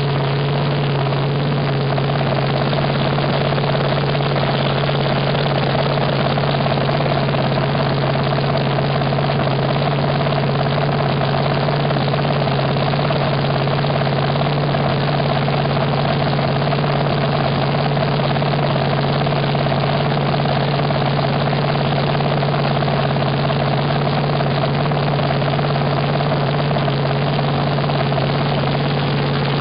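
Supercharged V8 of a vintage front-engine dragster idling steadily on open headers, a loud, even, unchanging engine note.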